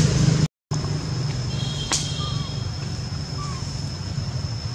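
Tropical forest ambience: a steady high-pitched insect drone over a low steady rumble. There is a sharp click about two seconds in, followed by a couple of faint short chirps. The sound drops out completely for a moment about half a second in.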